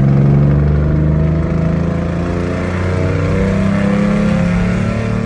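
Ford Mustang engine and exhaust running, fitted with headers and no X-pipe yet, its pitch drifting gently up and down.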